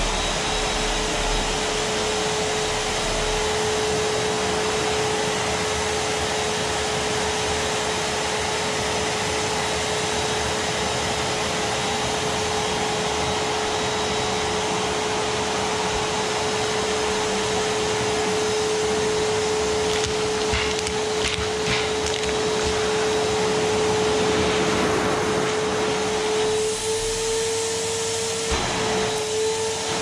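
Rowenta vacuum cleaner running steadily: a loud rushing of air with a constant whine from the motor. A few light clicks come a little past the middle, and near the end the whine steps up slightly in pitch as the airflow changes.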